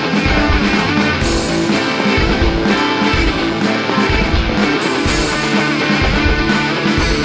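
Rock music with guitar over a steady, driving drum beat.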